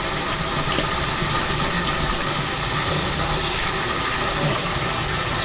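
Water running steadily from a kitchen tap, a constant even hiss with no break.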